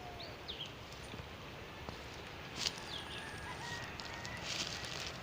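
Quiet outdoor bush ambience with a few short, high bird chirps, and a brief sharp crackle a little past halfway, such as a twig or dry leaves underfoot.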